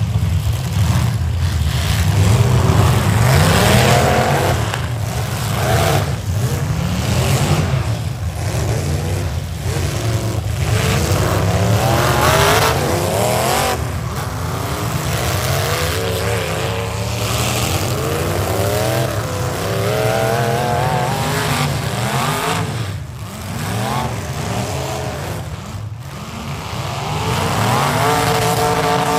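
Several V8 demolition derby cars running at once, their engines revving up and down again and again as they push and ram each other, with several sharp metal-on-metal crashes. Near the end one engine climbs to high revs and holds there.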